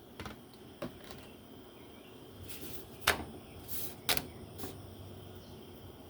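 A few sharp knocks and clicks of kitchen items being handled during cooking, the loudest about three and four seconds in, with two brief hisses between them.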